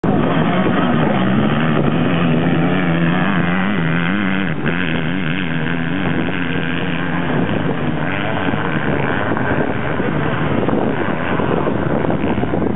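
Two off-road motorcycles racing up a steep grass slope, their engines revving hard. For the first half the engine pitch wavers up and down, then it turns rougher and less distinct as the bikes climb.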